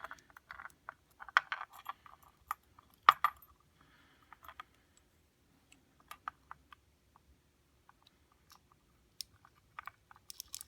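Small metal padlock parts clicking and tapping as the lock is taken apart: irregular light clicks with one sharper knock about three seconds in, the core and its pins being handled over a pinning tray.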